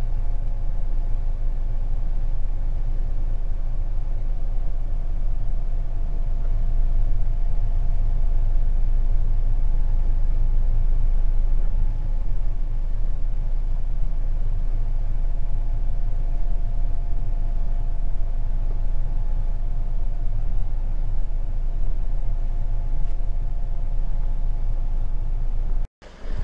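A car engine idling, heard from inside the stationary car's cabin: a steady low rumble with a faint steady hum over it.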